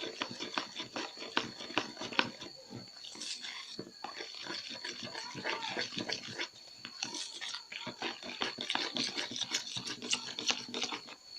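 Spoon stirring sticky white glue mixed with Tenys Pé activator in a container: a dense run of wet squelching and clicks of the spoon against the container.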